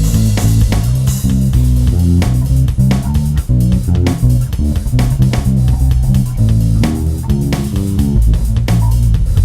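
Plucked-string instrumental solo, likely bass guitar, playing a busy run of low notes that change pitch several times a second.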